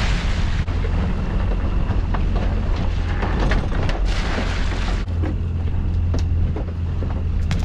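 Small boat's outboard motor running steadily under way, with wind buffeting the microphone and sea water splashing against the hull.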